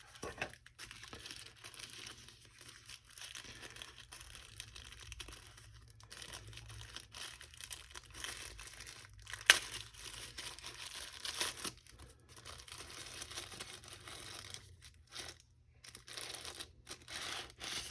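Product packaging handled and unwrapped by hand: wrapping crinkling, rustling and tearing in irregular spells, with a sharp crackle about nine and a half seconds in.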